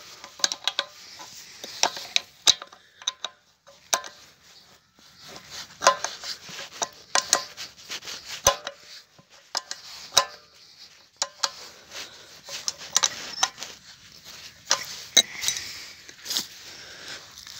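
Steel spanner clinking and scraping on the gland nuts of a centrifugal water pump as they are tightened to stop a leak, a run of irregular sharp metallic clicks.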